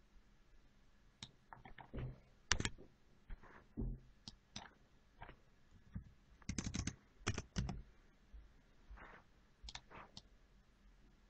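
Computer keyboard keys and mouse buttons clicking irregularly, with a quick run of key presses in the middle as a short number is typed into a field.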